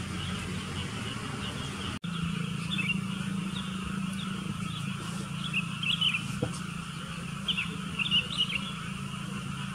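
Sooty-headed bulbuls calling with short chirps, in bunches about halfway through and again near the end, over a steady low hum.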